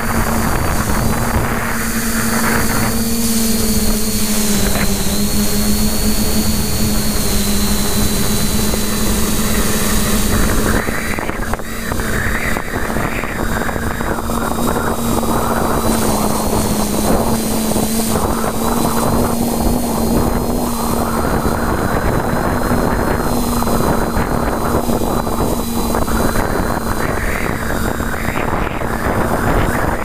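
TBS Discovery quadcopter's electric motors and propellers humming at a near-steady pitch, heard up close from on board. Wind rushes over the microphone in irregular gusts, stronger from about a third of the way in.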